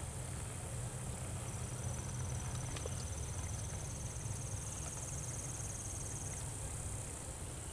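Outdoor pasture ambience: a steady low rumble with an even, high insect trill that starts about one and a half seconds in and stops about six and a half seconds in. A few faint clicks come in between.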